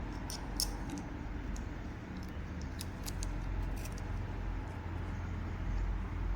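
Light, irregular clicks and taps of small metal knife parts being handled and fitted while a titanium-handled folding knife is reassembled, over a steady low hum.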